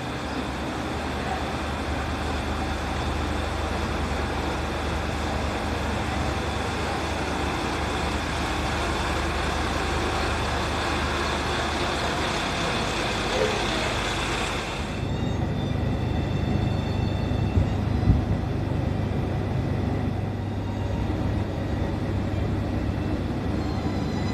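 Diesel railcar idling at the platform: a steady low engine drone with hiss. About two-thirds of the way through the hiss drops away and the drone turns muffled and boomier, as heard from inside the car, with a couple of soft knocks soon after.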